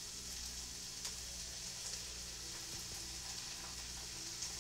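Food sizzling in a hot frying pan: a steady hiss with a few faint pops.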